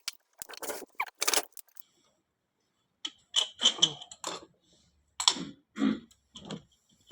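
Metal tools and engine parts clinking and clattering in short clusters of sharp clicks, with brief pauses between.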